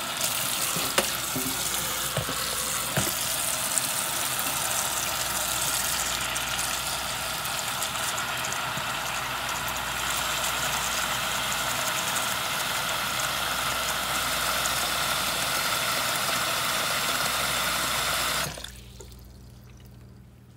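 Hot water running steadily from a sink tap into a plastic tub, filling it, with a few faint clicks in the first few seconds. The tap is shut off abruptly near the end.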